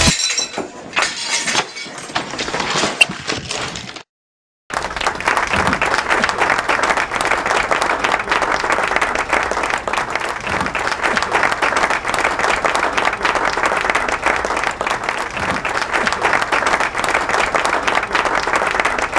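A short clatter of crashing and breaking sounds, then a half-second of silence and long, steady applause from a crowd.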